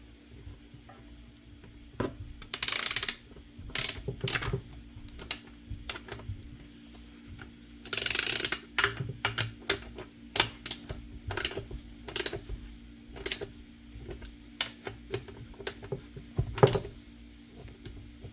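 Ratchet scrunch clicking as a chainsaw's bar nuts are tightened: irregular ratchet clicks with two longer runs of rapid clicking, about two and a half seconds in and again about eight seconds in. A faint steady hum sits underneath.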